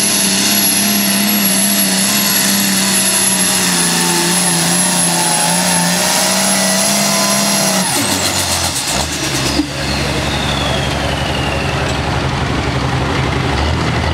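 Light Pro Stock turbocharged diesel pulling tractor running flat out under load, with a high steady turbo whine. About eight seconds in the throttle is cut at the end of the pull: the engine drops to a low idle and the turbo whine falls away over several seconds.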